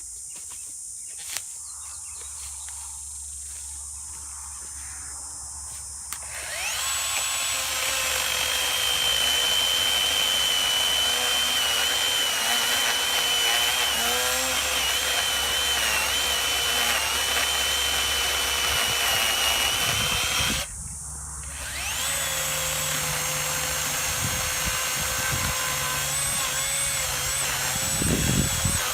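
Greenworks 40-volt cordless electric chainsaw with a 16-inch bar cutting cedar. About six seconds in it spins up into a steady high whine whose pitch wavers as the chain bites into the wood. It stops abruptly near twenty seconds, then spins up again and keeps cutting.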